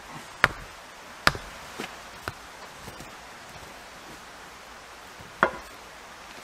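Sharp hammer blows driving wooden stakes into soft garden soil: two hard strikes in the first second and a half, two lighter knocks just after, then one more sharp knock about five and a half seconds in.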